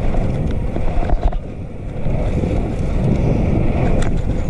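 Loud, steady wind rumble buffeting the microphone of a GoPro action camera.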